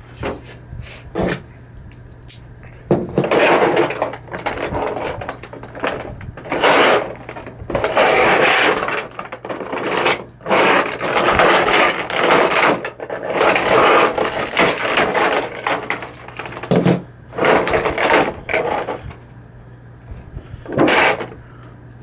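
Packaging of a large figure box being handled and pulled apart: repeated loud bursts of rustling and scraping of cardboard and plastic, with a few sharp knocks in the first few seconds. A low steady hum runs underneath.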